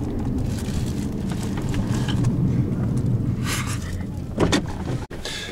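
Steady low rumble of a Honda car's engine and tyres heard from inside the cabin as it drives slowly along a street, with a couple of short hissy flares about three and a half and four and a half seconds in.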